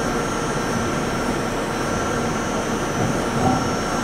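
Okuma & Howa Millac 561VA CNC vertical machining center running a program with no tool in the spindle: a steady hum with a few thin whines as the spindle turns at about 1,000 RPM and the axes position. The machine runs really smooth.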